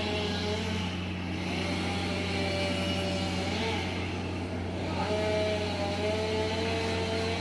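Engines running: a steady low drone under a higher engine note that wavers up and down in pitch.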